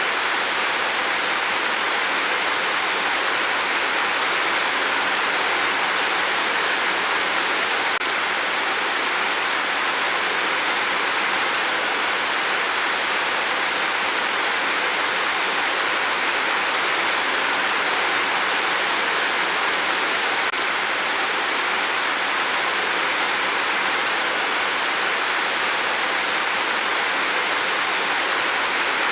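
Steady rain falling: an even, unchanging hiss with no separate drops or gusts standing out.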